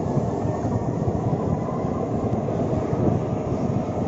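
Jet engine noise from a formation of aerobatic jets passing overhead, a steady low rumble.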